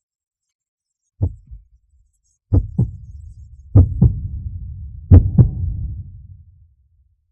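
Heartbeat sound effect: one low thump, then three lub-dub double beats about 1.3 seconds apart, each louder than the last, over a low rumble that fades out near the end.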